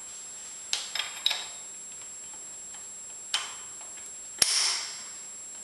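Sharp metallic clicks and clinks of steel change gears and hand tools being handled and fitted in a lathe's gear train. Three light clicks come in the first second and a half, another about three seconds in, and the loudest, a ringing clink, about four and a half seconds in.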